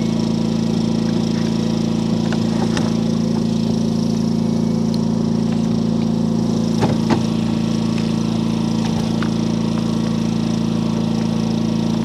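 An engine idling steadily, a constant unchanging hum, with a couple of faint clicks about seven seconds in.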